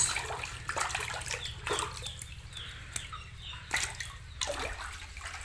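Water splashing and sloshing in a shallow concrete fish tank as a hand stirs among thrashing Vietnamese snakehead fingerlings, with irregular small splashes and drips.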